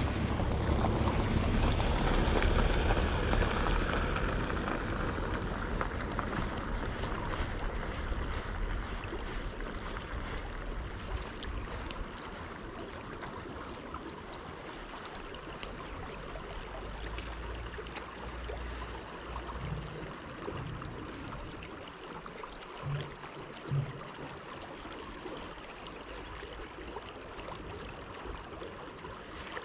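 Wind buffeting the microphone, a steady rushing noise with low rumble, loudest in the first few seconds and then easing off. Jacket sleeves and gloves rustle and tick close to the microphone as the hands work the line, with two soft low knocks about two-thirds of the way through.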